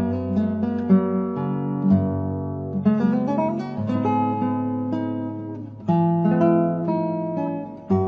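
Background music: a plucked acoustic guitar playing chords that change every second or two.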